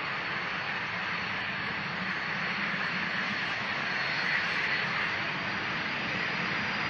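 Twin turbojet engines of two NASA T-38 Talon jets running at high power on the takeoff roll: a steady rushing jet noise with a faint high whine, swelling slightly about four seconds in.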